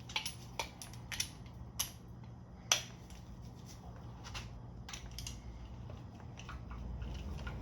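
A series of sharp metallic clicks and ticks, about half a second apart at first and then fainter, from a hand tool working loose a bolt on an engine being torn down.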